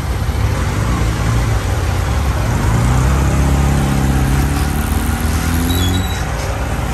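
A motor vehicle's engine running close by, its pitch climbing slowly before the sound drops away about six seconds in.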